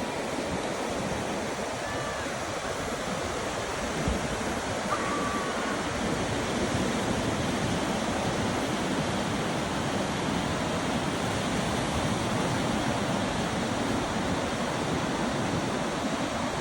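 Surf washing on a beach: a steady rush of waves.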